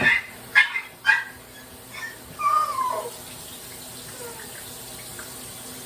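A household pet calling: three short sharp calls about half a second apart, then a longer call that falls in pitch.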